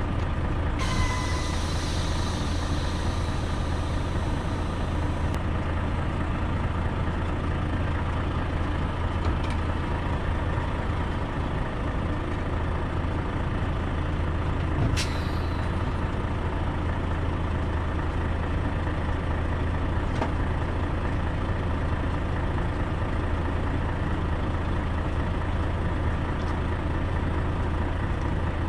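Heavy truck running with a steady low drone. A hiss starts suddenly about a second in and cuts off a few seconds later, and there is a single click near the middle.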